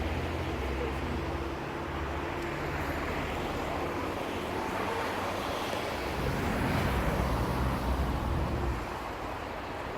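An engine running steadily with a low hum. It fades a little after the first couple of seconds, then grows louder from about six to nine seconds in before easing off.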